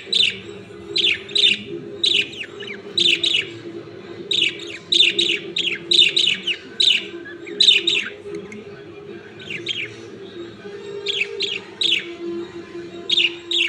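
Pet birds chirping: short, sharp chirps that fall in pitch, often in pairs, repeated about every half second in runs with brief pauses. A steady low hum runs underneath.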